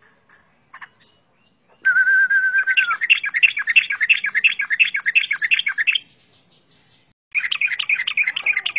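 Yellow-vented bulbul singing loudly. It opens with a short trilled note, then a fast bubbling run of chirps, breaks off about six seconds in and starts again a second later.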